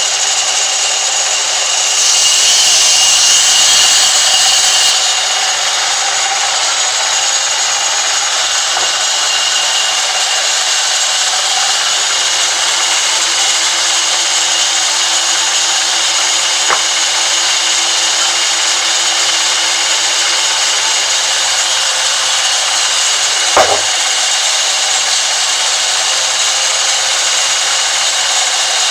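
Sawmill band saw running steadily as its blade rips lengthwise through a log, a continuous high hiss with a steady whine, a little louder for a few seconds near the start. A sharp knock about two-thirds of the way through is the loudest moment.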